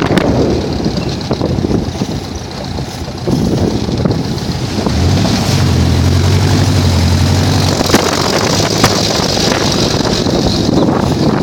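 Open dune buggy's engine running as it drives over sandy tracks, with wind buffeting the microphone; the engine drone grows strong about halfway through. Two sharp knocks near the end as the buggy jolts.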